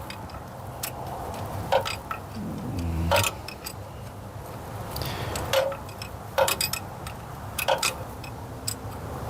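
Metal hand tool clicking and clinking against bolts, a sharp tick about every second or so at an uneven pace, as a wrench or ratchet works loose fasteners.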